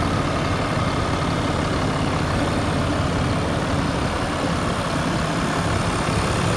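A 2019 RAM 3500's Cummins 6.7-litre inline-six turbo diesel idling steadily, heard with the hood open.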